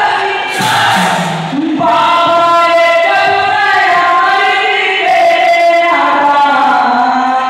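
Singing of a Panthi folk song, with long held, wavering sung notes over the music.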